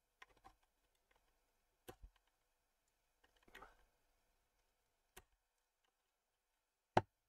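Faint, scattered clicks and light scrapes of a screwdriver working a stripped screw in a car amplifier's circuit board, with one louder click near the end.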